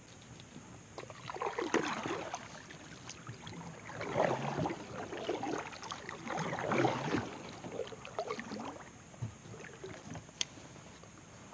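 Kayak paddle strokes dipping and splashing in lake water, a swish every two to three seconds, with a single sharp click near the end.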